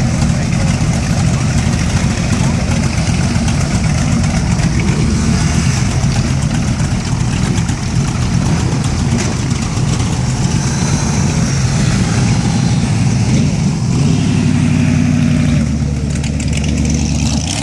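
V8-engined motorcycles idling steadily; near the end one changes pitch as it pulls away.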